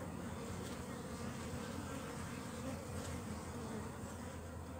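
A crowd of Asian honeybees (Apis cerana) on an open brood frame, humming steadily.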